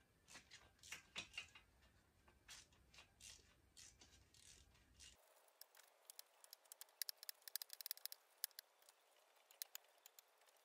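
Ratchet wrench on a long extension working a cylinder head nut: scattered light metal clicks and taps, then a quick run of ratchet clicks from about six seconds in.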